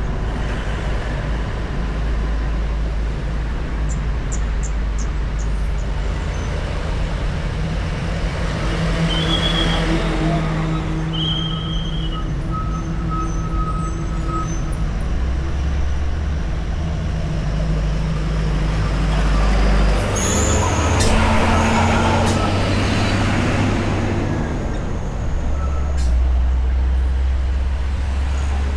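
Road traffic of cars and motorbikes passing by, a steady low engine rumble with tyre noise. It swells as vehicles pass close, once about a third of the way in and again about two-thirds in, with a brief high hiss at the second pass.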